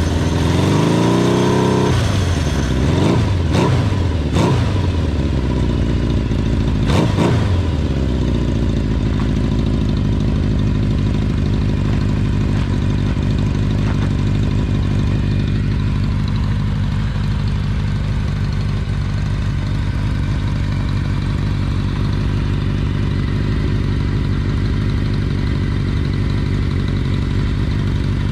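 Kawasaki Z500FX's air-cooled inline-four engine revved in several quick throttle blips over the first eight seconds or so, then settling to a steady idle. It runs smoothly with no abnormal noise, a sign of a healthy engine.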